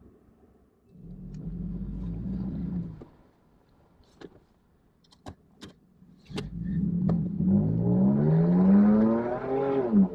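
Vehicle engine running for about two seconds, then a few sharp clicks. It then runs again with its revs climbing for a few seconds before dropping back to a steady idle near the end.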